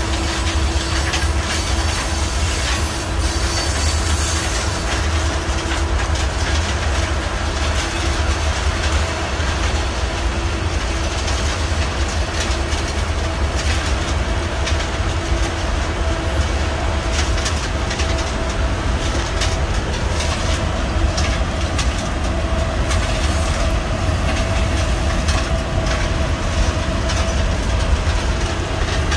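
Freight cars of a Union Pacific manifest train rolling past: a steady rumble of steel wheels on rail with clickety-clack over the rail joints, and a thin steady wheel squeal running through it.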